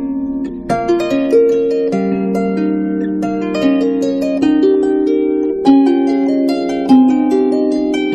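Background music: a harp playing plucked notes in a flowing melody with sustained, ringing tones.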